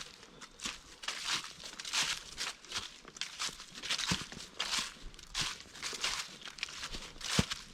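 Footsteps crunching through dry fallen leaves at a steady walking pace, about three steps every two seconds, with a sharper thud near the end.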